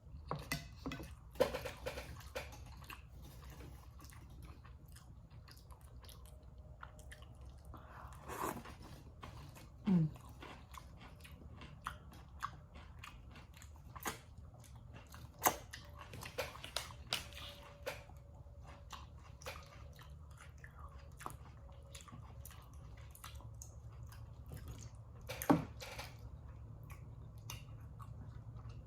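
Close-miked chewing and mouth smacking of a person eating, with many small wet clicks and a few louder bites scattered through.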